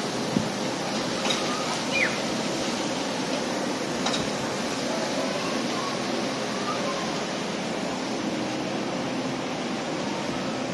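Steady rushing ambient noise on a cruise ship's open deck, even and unbroken, with a few faint light clicks in the first few seconds.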